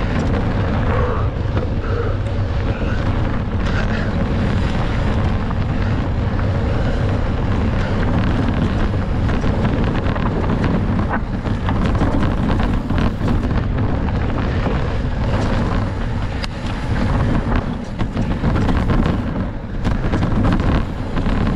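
Wind buffeting the microphone of a camera riding on a mountain bike at race speed, over tyre noise and scattered knocks and rattles from the bike on rough ground.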